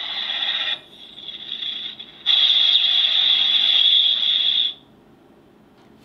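Kamen Rider Saber Falchion toy sword (Mumeiken Kyoam) playing an electronic sound effect through its small speaker. The effect fades back about a second in, then a second, louder blast runs from about two seconds in to near five seconds, where it cuts off.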